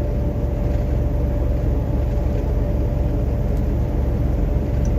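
Steady low rumble of a truck's engine and road noise inside the cab while climbing a highway hill, with a faint steady hum over it.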